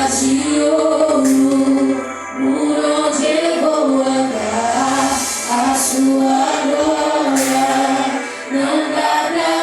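Gospel vocal group singing with instrumental accompaniment, several voices holding long sustained notes.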